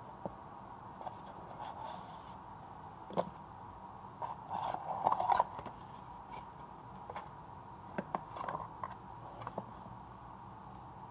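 Cardboard packaging being handled: a paper insert is lifted out of a box and a USB cable is pulled free, giving light taps, scrapes and rustles in short bursts, busiest around the middle.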